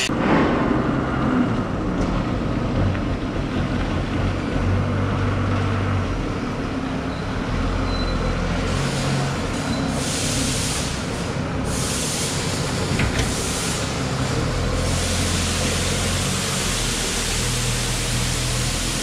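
Forklift engine running steadily, a low hum under a hiss of workshop noise.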